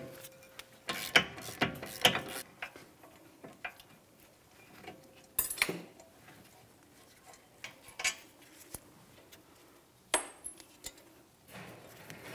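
A hand ratchet clicking on a brake caliper bracket mounting bolt, then irregular metal clinks and clacks as the loosened bolts and the caliper bracket are handled.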